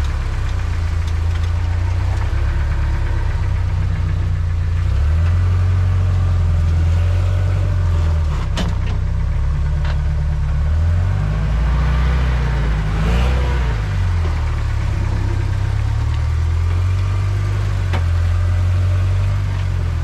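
A 1984 Toyota pickup's engine running at low revs while the truck crawls over a boulder on 42-inch Irok tires; the engine note rises and falls a little as the throttle is worked. A few sharp knocks sound over it, about eight and a half seconds in and again near the end.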